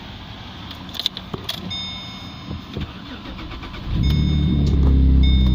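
Holden VE Commodore's 3.6 litre LLT V6 with an aftermarket dual exhaust and extractors being started. First come a few clicks and some electronic beeping as the key is turned. About four seconds in the engine fires and settles into a steady idle with a loud exhaust.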